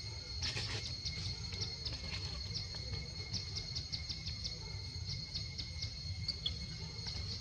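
A steady, high insect drone, like crickets or cicadas, with many short high chirps scattered through it and a low rumble underneath.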